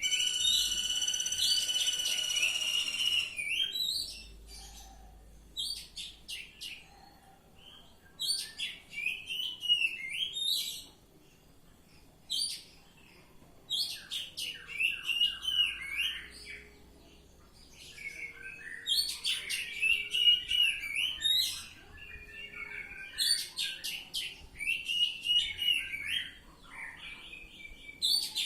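Oriental magpie-robin (kacer) singing: a long held whistled note at the start, then repeated bursts of varied chirps and trills with short pauses between them.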